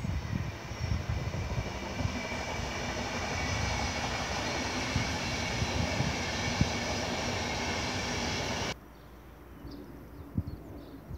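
Deutsche Bahn Intercity train, white coaches and a red electric locomotive, rolling past on the main line: a steady rail rumble with low thumps from the wheels. It cuts off suddenly near the end, leaving only a faint outdoor background.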